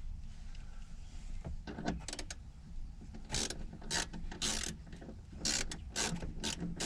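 Hand ratchet wrench clicking in a run of short, repeated strokes, starting about a second and a half in, as it backs out the deep-set 7 mm bolt that holds a rear-deck speaker down.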